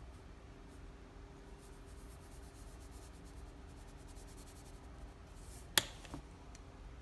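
Seasoning shaken from a shaker bottle over floured meat: a quick run of faint, fine rattling ticks, then one sharp click near the end, with a faint steady hum behind.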